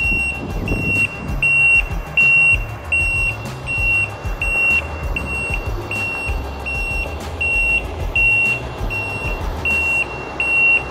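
A reversing alarm beeping steadily, about three beeps every two seconds, over the low running of a semi-truck's diesel engine as it backs up with a dump trailer.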